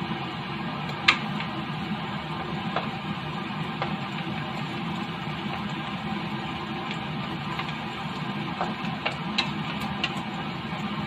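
Food sizzling steadily in a nonstick wok as it is stir-fried with a wooden spatula. The spatula knocks sharply against the pan once about a second in and a few times near the end.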